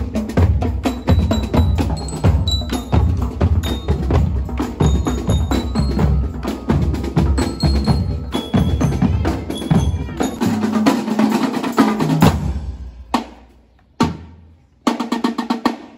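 Youth marching percussion band playing a marching cadence on bass drums and snare drums, with short high notes from bell lyres over it. The playing stops about twelve seconds in, followed by a single drum hit and a short burst of strokes near the end.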